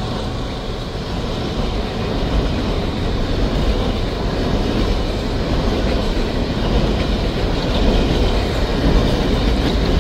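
Loaded coal train's cars rolling past at speed: a steady rumble and clatter of steel wheels on the rails.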